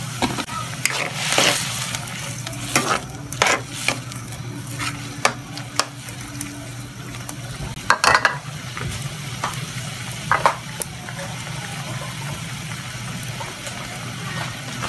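Tuway clams cooking in sauce in a metal wok, a steady sizzle with a utensil scraping and clinking against the pan a dozen or so times as the sauce is stirred in. The stirring stops after about eleven seconds and the simmering goes on alone.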